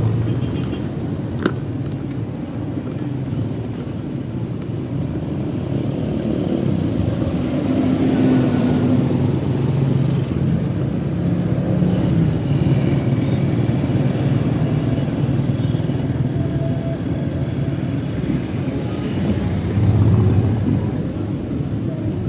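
Road traffic heard from a moving open electric tricycle: motorcycle and tricycle engines running close by over a steady rumble of road noise, swelling briefly near the end.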